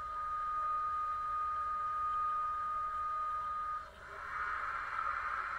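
Model DB class 152 electric locomotive: a steady high whine, then about four seconds in it drops out briefly and gives way to a rising hiss with a climbing pitch as the locomotive starts to pull away.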